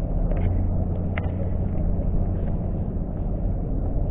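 Steady low rumble of distant engines, with a deep hum held throughout and a few faint clicks.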